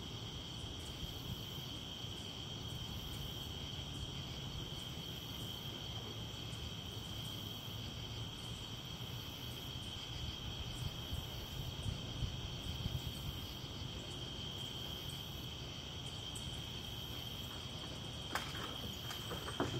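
Night chorus of crickets: a continuous, even high trill, with a fainter, higher insect call pulsing about once a second and a low steady background noise underneath. A sharp click sounds near the end.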